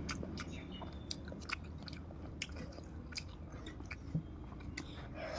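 A person chewing a mouthful of rice and small puti fish close to the microphone: soft chewing with about a dozen sharp, scattered mouth clicks and smacks, over a faint low hum.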